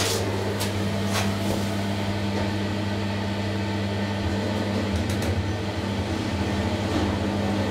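A 2011 SMW machine-room-less traction elevator car travelling between floors: a steady low hum with an airy rush. There are a few clicks in the first second and a half and another around five seconds in.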